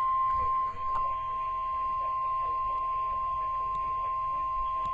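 NOAA Weather Radio warning alarm tone (the 1050 Hz tone): one steady, unbroken high beep held at an even level, sounded to announce a warning broadcast. Faint radio talk lies underneath.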